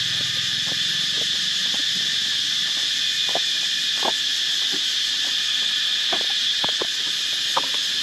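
Steady, high-pitched chorus of crickets and other insects, with short single calls sounding here and there underneath.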